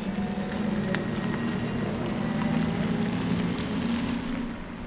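Volkswagen ID.3 electric car pulling away at low speed: a steady synthetic hum from its pedestrian warning sound system, over tyre noise on wet asphalt. The hum fades near the end as the car moves off.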